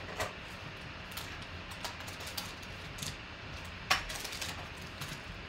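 Cardboard trading-card box being opened and its foil packs handled: scattered light taps and clicks, the loudest about four seconds in.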